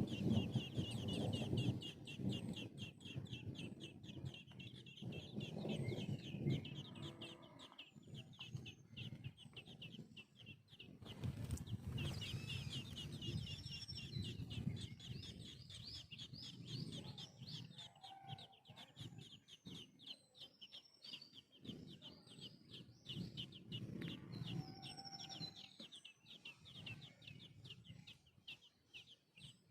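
Birds calling: a dense, steady stream of quick high chirps, with lower-pitched sounds coming and going underneath.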